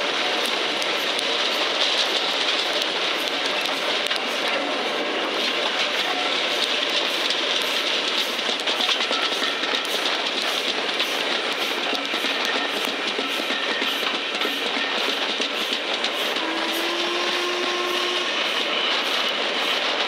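Passenger train hauled by LMS Black Five steam locomotive 45428, running along and heard from an open carriage window: a steady rush of wheels on rail and wind, with clickety-clack over the rail joints.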